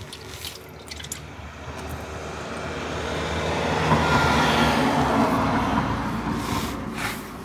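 Old automatic transmission fluid pouring out of the open drain hole into a drain pan. The stream swells to its loudest about four seconds in, then tapers off.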